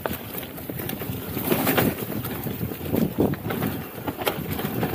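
Mountain bike riding fast down a dry, dusty dirt trail: tyres rolling over loose dirt, with clicks and knocks from the bike rattling over bumps and wind on the microphone.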